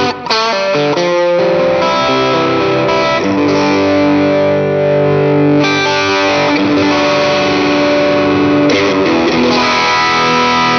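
Electric guitar played through a Valeton GP200R multi-effects processor on a crunch overdrive preset: strummed chords left ringing, a new chord every second or so.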